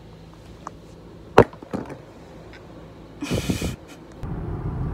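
A woman's wordless sounds of exasperation: a sharp short vocal sound about a second and a half in, then a loud breathy exhale like a sigh or groan about three seconds in. Near the end a steady low rumble of road noise inside a moving car begins.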